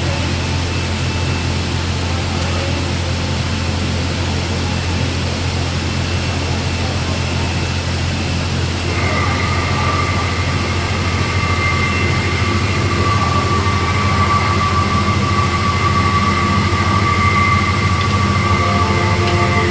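Ambient background music: a steady low drone with held tones layered above it, and a higher sustained tone that enters about nine seconds in as the level swells slightly.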